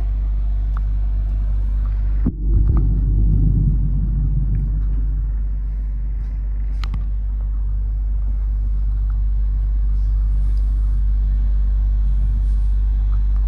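Steady low rumble of a passenger train running, heard from inside the carriage. About two seconds in it breaks off abruptly and comes back louder for a couple of seconds before settling.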